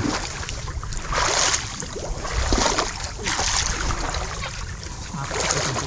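Shallow creek water sloshing and splashing as people wade through it and grope in the muddy bottom, in uneven bursts, the strongest about a second in and again near three seconds.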